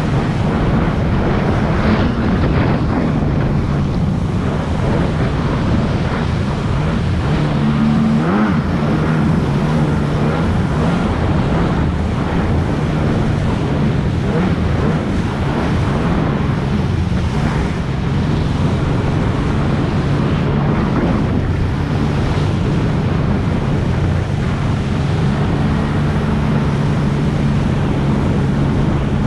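Personal watercraft engine running steadily at speed, its pitch briefly rising and dipping about eight seconds in, over rushing water spray and wind buffeting the microphone.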